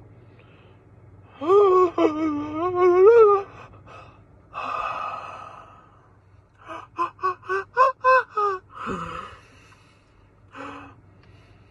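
A high-pitched voice making wordless sounds: a long wavering wail about a second and a half in, then a breathy gasp. It goes on with a quick string of about eight short yelps, about four a second, and a brief short note near the end.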